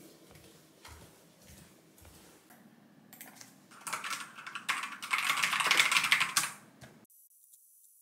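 Fast typing on a computer keyboard, a dense run of key clicks starting about three and a half seconds in after a few faint taps, then cutting off suddenly about seven seconds in.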